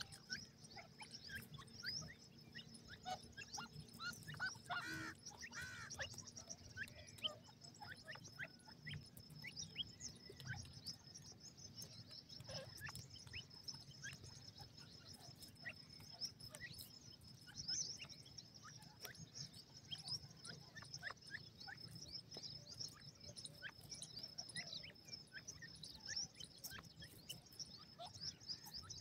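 Faint, scattered bird chirps and short calls over a steady, thin, high whine, with one louder call about five seconds in.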